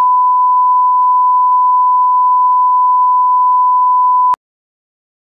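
TV test-card tone: one loud, steady beep at a single fixed pitch that cuts off suddenly about four seconds in.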